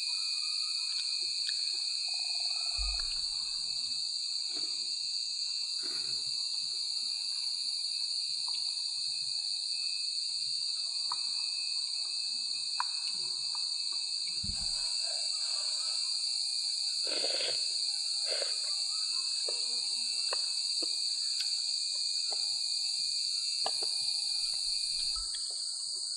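Steady, loud high-pitched drone of jungle insects, with a few faint taps and low knocks now and then.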